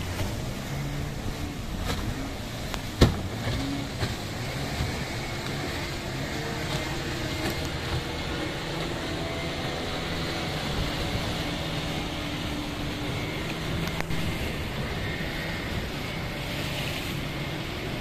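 Motors of small fishing boats running as the boats head out to sea, over a steady wash of waves breaking on rocks. A single sharp knock sounds about three seconds in.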